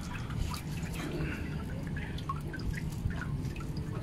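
Water dripping and splashing in quick, irregular small patters from a fish trap holding a catch of linh fish, over a low steady rumble.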